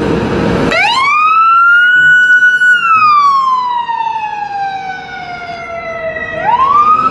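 Fire department vehicle's siren on a wail. After a short harsh burst at the start, the tone rises over about a second, holds high briefly, then slowly falls for several seconds and rises again near the end.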